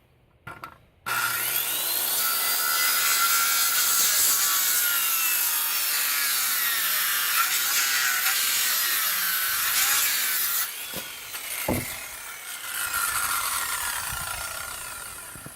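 Electric power saw cutting through lumber, starting abruptly about a second in and running for about ten seconds with its pitch wavering under load, then winding down near the end. The blade is dull and due for replacement.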